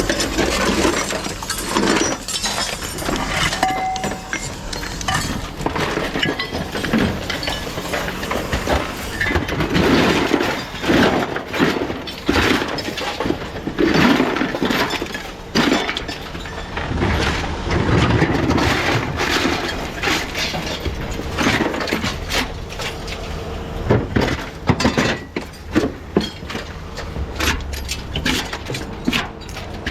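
Scrap being rummaged through and handled: irregular clattering, knocking and clinking of hard objects knocking together.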